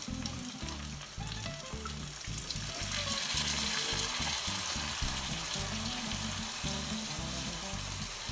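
Turkey breast cutlets frying in butter in a non-stick pan: a steady sizzle that grows louder about three seconds in, as lemon juice is squeezed from a bottle over them. Quiet background music plays underneath.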